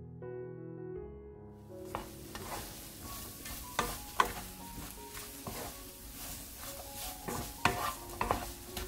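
Soft piano music, then from about two seconds in, garlic scapes and dried shrimp in chili sauce sizzling in a frying pan over low heat. A wooden spatula scrapes and knocks against the pan as they are stirred, with the loudest knocks near the middle and again near the end.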